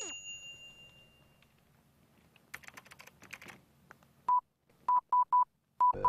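Computer keyboard keys clicking for about a second, followed by short electronic beeps all at one pitch: one, then a quick run of three, then one more near the end. A ringing tone from a software sound effect fades out at the start.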